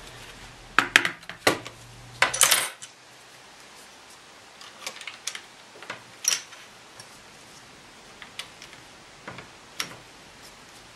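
Sun Type 5 keyboard's plastic keycaps clicking and clattering as they are pulled off and handled, several in quick succession in the first few seconds, then single clicks every second or two.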